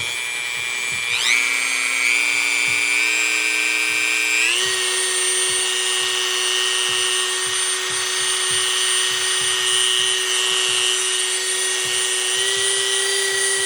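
Dremel 4000 rotary tool running with no load, a steady high whine. Its pitch steps up twice, a little after one second and about four and a half seconds in, as the speed is turned up, then it holds at top speed.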